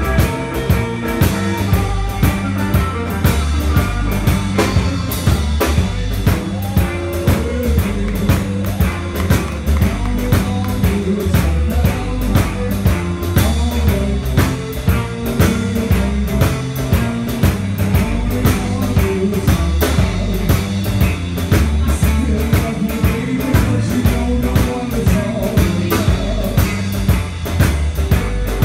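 Live blues-rock band playing: two electric guitars, electric bass and a drum kit keeping a steady beat.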